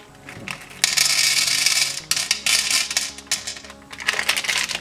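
M&M's poured from their packet into a plastic tray compartment, the hard-shelled sweets rattling in a dense clatter about a second in, then scattered clicks as the last ones tumble out.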